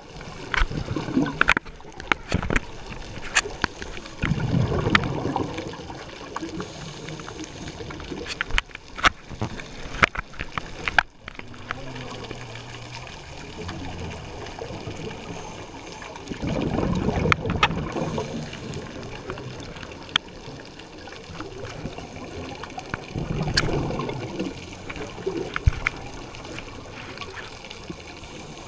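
Scuba diver's exhaled bubbles gurgling out of the regulator in bursts several seconds apart, with scattered sharp clicks in between.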